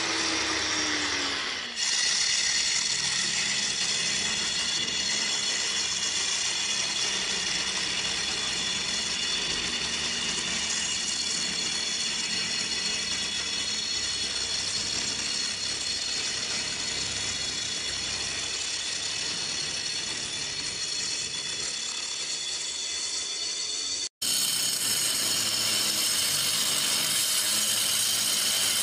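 Handheld angle grinder running under load, its disc cutting a straight chase into a brick wall: a steady high motor whine over the rasp of the disc grinding through brick. The sound breaks off for an instant near the end.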